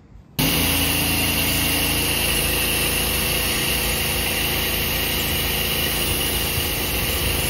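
Engine-driven pressure washer running with a steady spray hiss over the engine's hum, as the crew downstreams hydroxide solution onto the concrete. It cuts in abruptly just after the start.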